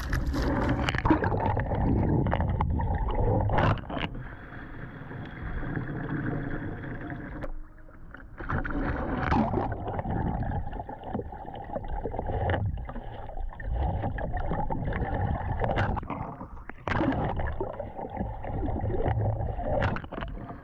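Water splashing and sloshing around a kayak as it capsizes and the paddler tries to roll up, in several surges with brief lulls: a failed Eskimo roll.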